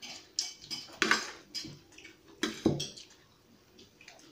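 A spoon clinking and scraping against dinner plates as people eat: a handful of sharp clinks in the first three seconds, the loudest about a second in and just before the three-second mark.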